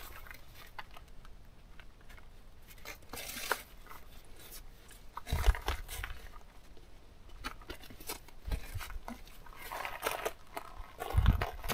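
A folding camp chair being handled and folded: irregular fabric rustling and crinkling with light clicks from its frame, and a few louder knocks and crunches, the loudest about five and a half seconds in and near the end.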